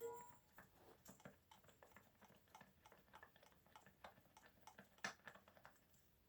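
Faint, irregular clicks and taps of parts being handled as a piece is threaded by hand onto an air compressor, with a small ringing metal clink at the start and a sharper tap about five seconds in.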